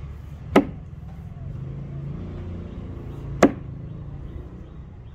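Two blows of a double-bit axe into wood, about three seconds apart, each a single sharp crack.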